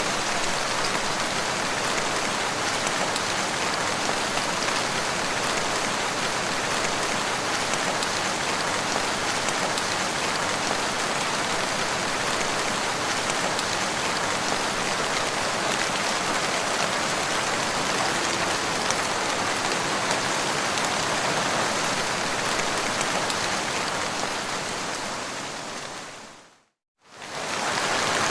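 Steady rain falling on a surface, an even hiss of drops. Near the end it fades out to silence for a moment and fades straight back in.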